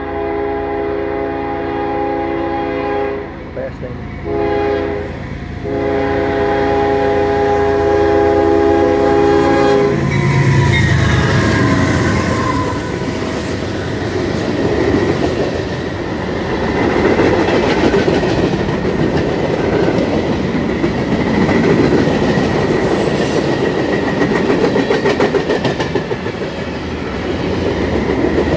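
Freight train locomotive horn sounding for a grade crossing in long and short blasts, the last blast held until the locomotive reaches the crossing about ten seconds in. Then a sudden loud rush of engine and wheel noise, and a long string of tank and hopper cars rolling past at speed with steady wheel rumble and clickety-clack.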